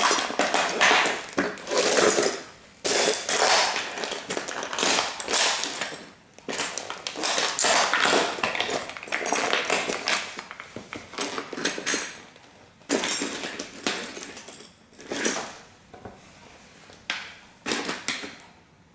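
Dr. Martens Jadon platform boots grinding and stomping on the broken remains of a Bugatti model car: metal and plastic fragments crunching, scraping and clattering under the soles in repeated bursts, thinning to a few separate knocks toward the end.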